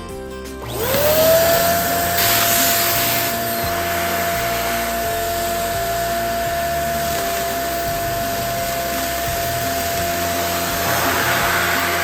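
Electric balloon inflator running: its motor spins up quickly about a second in and then holds a steady whine with a rush of air, blowing up a balloon.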